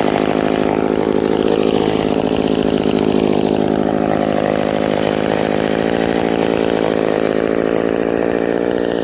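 Yellow McCulloch two-stroke chainsaw running steadily off the cut at a fast idle, racing a little: its idle speed is set too high and needs turning down.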